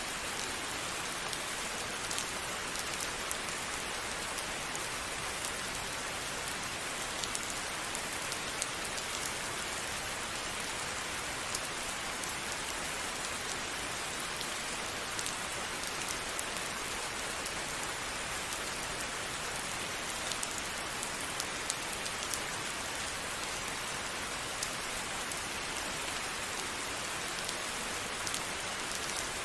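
Steady rain falling on a surface, an even hiss with the scattered ticks of individual drops.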